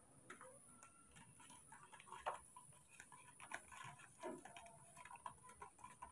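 Faint, irregular clicking and tapping of a metal spoon stirring powdered milk in a plastic cup.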